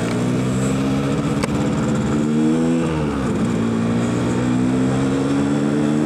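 Yamaha RX-King's single-cylinder two-stroke engine through its stock exhaust, accelerating under way: the revs climb, fall away sharply about three seconds in, and climb again.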